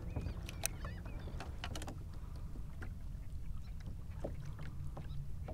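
Small-water lapping and slapping against a plastic kayak's hull, over a low steady rumble, with scattered small clicks and ticks.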